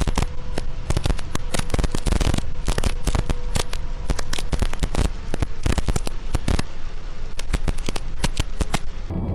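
Heavy rain pelting a car's windshield and roof, heard through a dashcam's microphone as a dense, irregular crackle of drop impacts. It cuts off abruptly near the end.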